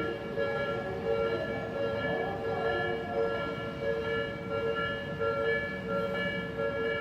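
Japanese railway level-crossing warning alarm ringing continuously, its pitched tone pulsing in an even repeating beat, with train rumble beneath.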